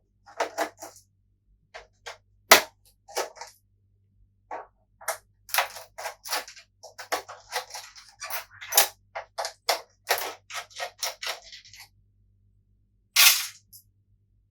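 Clicks, taps and scratches of hand tools working on a PS4 Pro's plastic casing as its security locks are removed, with one sharp loud click about two and a half seconds in and a longer scrape near the end.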